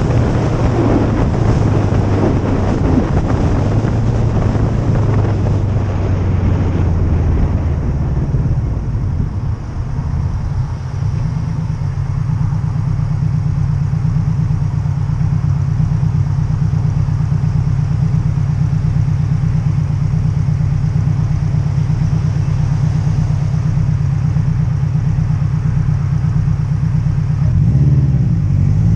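Subaru Impreza WRX STi Type R's turbocharged flat-four engine running. It starts under a noisy, busy spell, then settles about ten seconds in to a steady low engine note. Near the end the revs rise as it accelerates.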